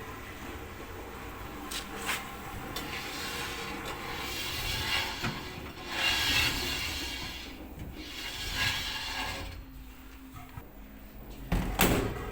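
Bosch tumble dryer drum making a scraping, rubbing noise as it turns, swelling and fading every second or two, with a few clicks and a loud knock near the end.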